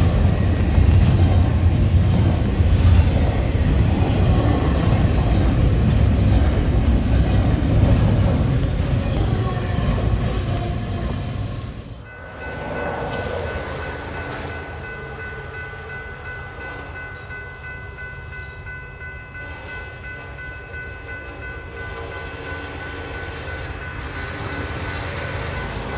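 Intermodal freight train rolling past with a loud, steady rumble of its cars, cut off suddenly about halfway through. It is followed by a locomotive's multi-chime air horn sounding one held chord at a distance.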